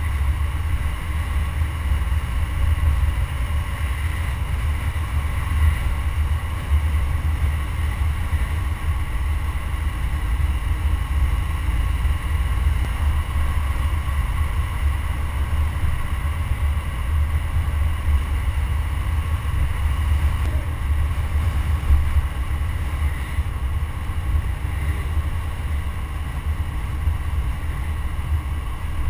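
Wind and road noise on a camera mounted at the front grille of a moving car: a steady low rumble with a faint steady whine above it.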